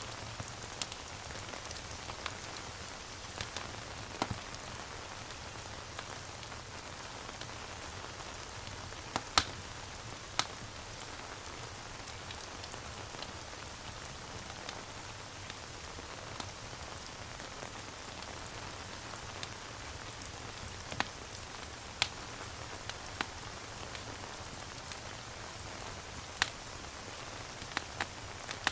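Steady rain ambience mixed with a fireplace: an even hiss of rain with scattered sharp crackles and pops, a few louder ones about a third of the way in.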